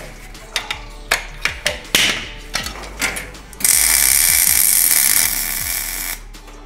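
Several short, sharp clicks, then a MIG welder's arc crackling steadily for about two and a half seconds before cutting off. The weld is being laid onto a broken-off exhaust manifold bolt stub so it can be backed out of the cylinder head.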